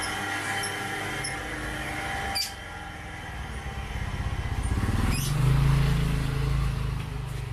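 A motorcycle engine comes close and passes by, its sound swelling to a peak about two-thirds of the way through and then easing off. A sharp click sounds about a third of the way in.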